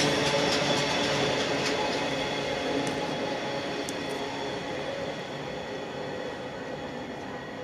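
Freight train's container flat wagons rolling past and fading steadily into the distance as the tail of the train draws away. There are a few clicks from the wheels in the first couple of seconds.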